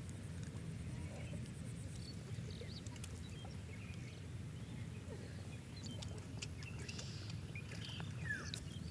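Pond water sloshing and lapping around a person wading chest-deep and groping along the bottom by hand, with small scattered splashes over a steady low rumble. A few faint chirps come near the end.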